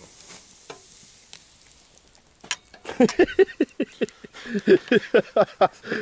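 Meat sizzling over charcoal on a grill, a steady high hiss. About halfway in, a loud, quick run of short squeaky sounds starts, about four or five a second.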